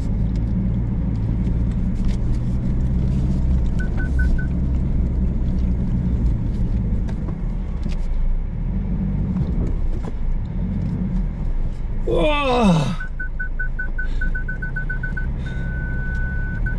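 SUV engine pulling in low-range four-wheel drive with the differential lock engaged, heard from inside the cabin over a rough rocky track, with scattered knocks and rattles. A high electronic beep sounds briefly about four seconds in and again near the end, where the beeps quicken into a steady tone, typical of parking sensors warning of an obstacle. A brief falling cry comes about twelve seconds in.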